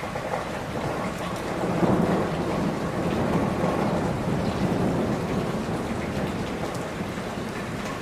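Steady rain with a low rumble of thunder that swells about two seconds in and slowly fades over the next few seconds.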